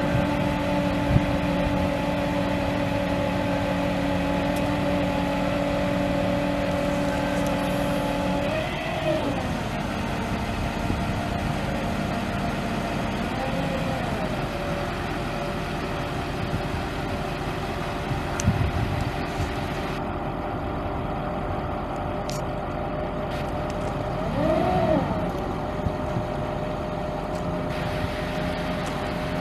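6.6-litre turbo-diesel V8 of a 2006 Chevrolet C5500 truck running at idle. Its speed briefly rises and falls three times.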